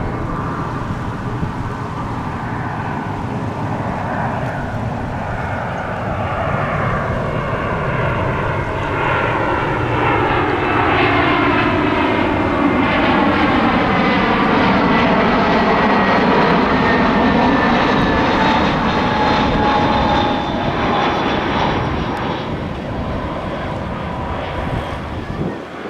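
Airbus A320 airliner's twin IAE V2500 turbofan engines on final approach with gear down, flying past: a steady jet rumble that swells to its loudest about halfway through, with tones sliding down in pitch as it goes by, then easing off near the end.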